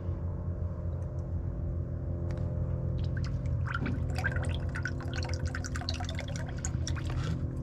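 Brake fluid trickling and dripping with small crackling splashes, starting about three seconds in, over a steady low hum.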